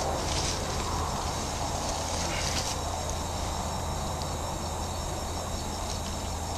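Night chorus of crickets chirring steadily, with some rustling in brush and leaves as a person moves and kneels in the undergrowth.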